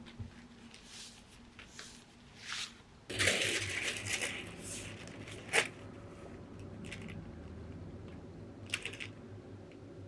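Small handling sounds at a work desk: soft rustles and swishes, then a steadier background from about three seconds in. There is a sharp click a couple of seconds later and a few lighter ticks after it.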